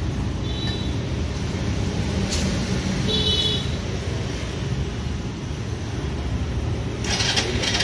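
Steady low rumble of motor traffic, with two brief high squeaks, and a clatter of short knocks near the end.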